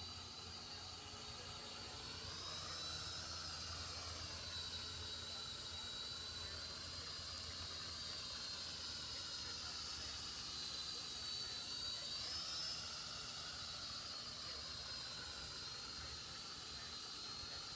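Small quadcopter drone's electric motors and propellers whining steadily in flight, the pitch rising and falling back twice, about three seconds in and again about twelve seconds in.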